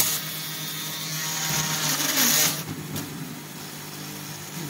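Automatic screw-driving machine's motorised screwdriver spinning as it drives a screw into an aluminium floor-wiper profile, over a steady machine hum. A sharp click comes at the start, and the spinning stops about two and a half seconds in.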